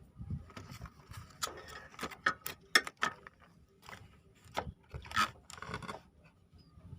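Handling noises of a toy RC car and its packaging: an irregular run of sharp clicks, rubs and short rustling scrapes. The loudest click comes near the middle, and a rustle comes about five seconds in.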